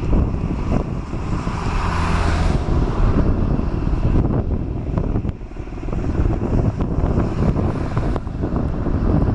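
Boeing 737-800 jet engines (CFM56-7B turbofans) during landing, with a hissing swell about two seconds in. Heavy wind buffeting on the microphone rumbles throughout and is the loudest sound.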